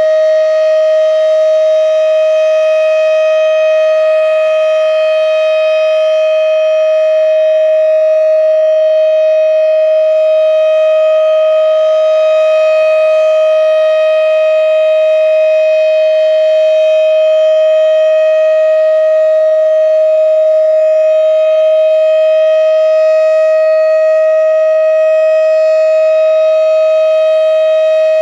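Federal Signal Thunderbeam RSH-10 single-tone electromechanical tornado siren sounding its steady Alert signal during a test. It is a loud, unbroken tone at one pitch with a stack of higher overtones.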